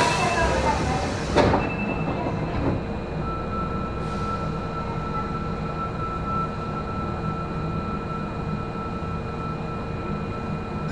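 Inside an Osaka Municipal Subway Series 10 car: the sliding doors shut with a sharp thud about a second and a half in. The train then sets off, a steady high whine from its traction equipment sounding over the low running rumble from about three seconds in.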